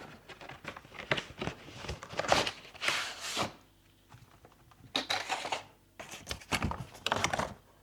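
Rustling and crinkling of a small parts package being opened and searched by hand, in irregular bursts with short pauses.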